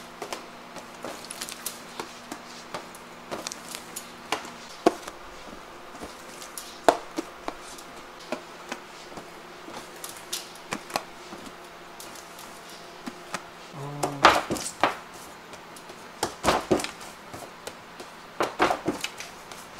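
Irregular taps and knocks of hands working bread dough on a steel worktable and metal sheet pan: dough pieces cut with a bench scraper and set down on the tray. The knocks come sparsely at first and bunch up about two-thirds of the way in, over a faint low steady hum.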